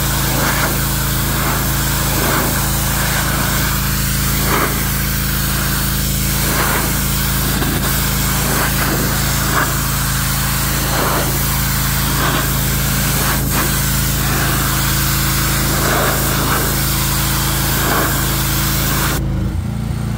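Pressure washer running: a steady engine drone under the loud hiss of the spray wand blasting degreaser-coated concrete steps. About a second before the end the spray shuts off while the engine keeps running.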